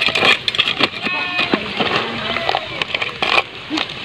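A metal spoon knocking and scraping against a metal cooking pot and the lobster shells in it while they are stirred: a quick, irregular run of clinks.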